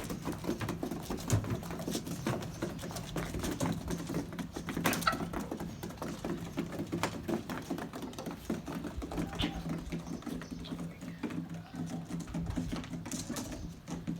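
Poultry pen sounds: irregular light tapping and clicking, with a few short bird calls and a low steady hum underneath.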